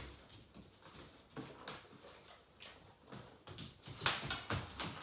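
Two German Shorthaired Pointers moving about on a wooden floor and a wooden board: irregular taps and scuffs of paws and claws, loudest about four seconds in.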